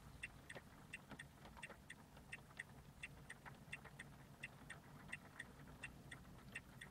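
Faint, steady mechanical ticking, about three ticks a second in an alternating tick-tock rhythm, each tick alike, over a low hum.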